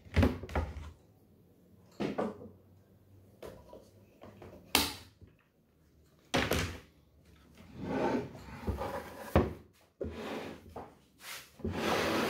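A series of sharp knocks and bumps from wooden, melamine-faced cabinet panels and a quick-release bar clamp being handled: the clamp is taken off and set down, and the cabinet is shifted. A steady rustling starts near the end.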